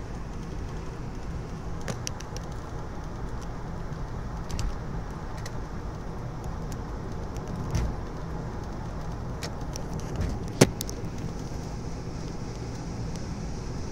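Steady road and wind noise inside the cabin of a 2003 Lexus cruising on the highway at about 80 mph. A few light clicks come through, and there is one sharp knock about ten seconds in.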